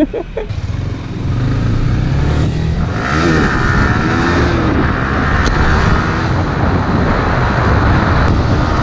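Motorcycle engine running under way, its pitch rising and falling a few times as it accelerates, over a steady low rumble and a continuous rushing noise.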